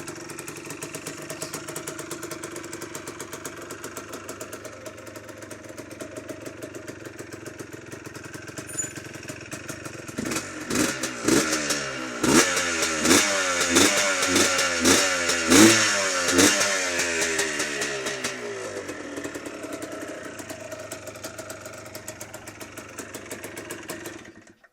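Rebuilt Yamaha Blaster's single-cylinder two-stroke engine idling, then revved again and again in a quick run of throttle blips for several seconds about ten seconds in before settling back to idle; the sound cuts off suddenly near the end.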